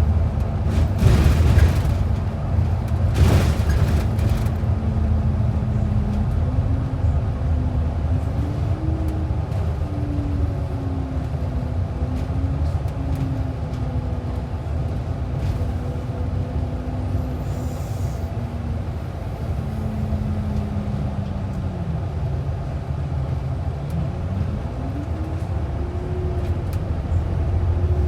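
Transit bus driving, with steady road rumble and a drivetrain whine that rises and falls in pitch as the bus speeds up and slows. Two short bursts of noise come in the first few seconds.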